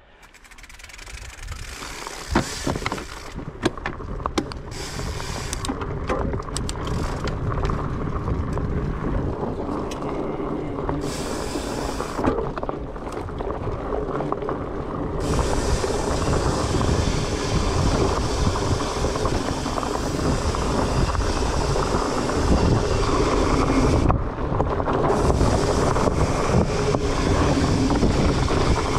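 Wind rushing over the microphone with the rumble and rattle of a Trek Farley 9.8 fat bike rolling over dirt trail. It builds over the first couple of seconds as the bike gets going, with scattered knocks and clicks over bumps in the first several seconds.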